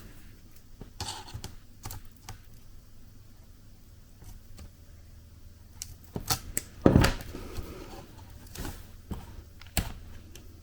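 Pliers working a Lenovo Yoga laptop's bent case and hinge back into shape: scattered clicks, taps and short scrapes of metal on the case, the loudest a knock about seven seconds in.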